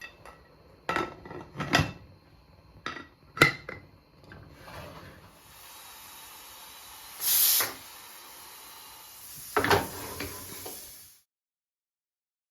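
Kitchen handling sounds: a few sharp knocks and clatters, then a steady hiss with a louder burst about seven seconds in and another clatter near ten seconds. It all cuts off abruptly about eleven seconds in.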